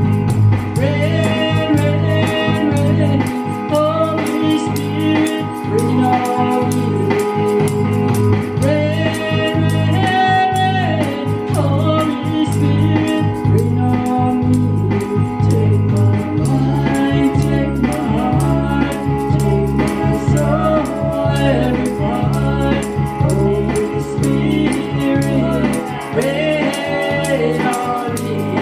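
A woman singing a gospel song into a microphone over a steady instrumental accompaniment of held chords, the bass shifting to a new chord about halfway through.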